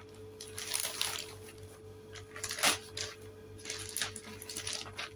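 Plastic shopping bag crinkling and rustling as it is handled and folded, in short irregular crackles, the loudest about two and a half seconds in.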